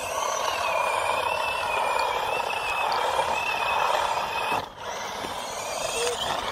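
Brushless RC monster truck driving on rough asphalt: a steady high electric-motor whine over the hiss and crunch of its tyres. The sound drops off sharply about three-quarters of the way through.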